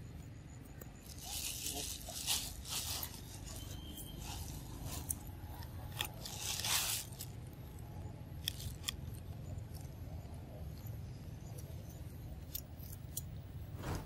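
Long-tailed macaques biting into and chewing raw cucumbers: crisp crunches and short sharp clicks, with a longer crunchy burst around a second in, again near three seconds and around seven seconds, over a steady low rumble.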